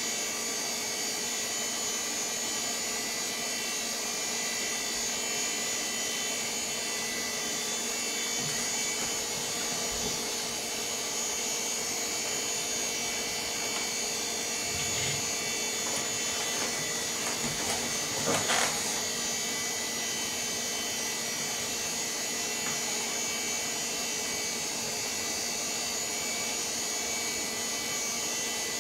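VAX 4000-100A minicomputer running with a steady whir of cooling fans and spinning disk, many fixed whining tones held throughout. A few brief knocks and clicks come around the middle, the loudest about two-thirds of the way in, as the machine moves from self-test to loading system software.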